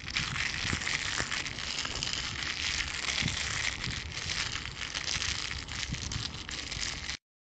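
Steady hiss with a few faint crackles and a low rumble beneath, cutting off abruptly about seven seconds in.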